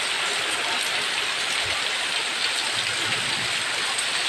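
Heavy rain pouring steadily, mixed with the rush of flowing floodwater.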